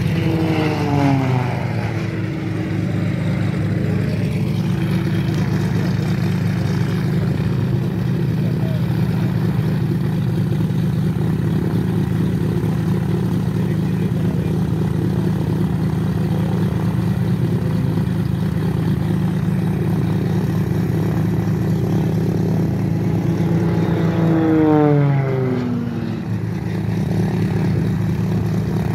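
Beechcraft T-34 Mentor's piston engine and propeller running at a steady idle on the ground. Its pitch falls back from a brief rise just at the start and again near the end.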